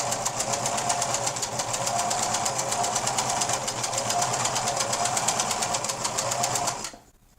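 Singer Merit 4528C sewing machine running steadily at speed, sewing a straight stitch with a fast, even clatter of needle strokes. It stops suddenly near the end.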